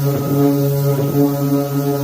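Cordless electric sander running steadily against a car's painted body panel, giving a steady buzzing hum with a few brief wavers.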